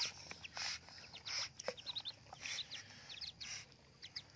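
Ducklings peeping, with several short splashes as a hand swishes the water in the shallow tub they are swimming in.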